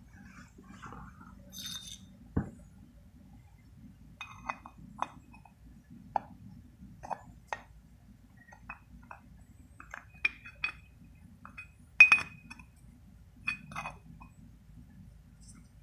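Irregular light clinks and taps of a small painted steel bracket being handled. There is a dull knock about two seconds in, and a sharp ringing metallic clink about twelve seconds in is the loudest.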